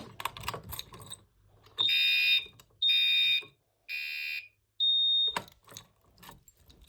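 Fire alarm horns running off a 9-volt battery: a little clicking and rattling, then three short, loud, high-pitched buzzing horn blasts about a second apart, followed by one brief pure high beep like a panel piezo.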